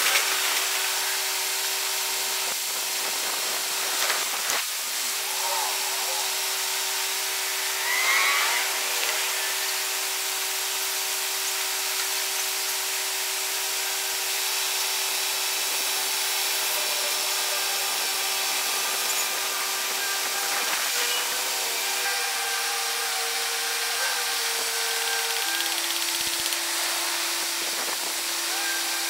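Steady mechanical hum of a running machine, held at one pitch and then shifting to a different note twice near the end, with a few brief knocks and a short squeal partway through.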